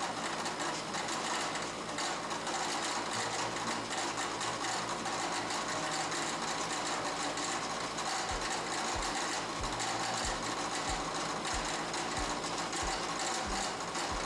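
Mill-drill running with an end mill cutting a 45-degree chamfer along the top edge of a metal block: a steady, dense machining noise. From about halfway through, a low thump repeats about one and a half times a second.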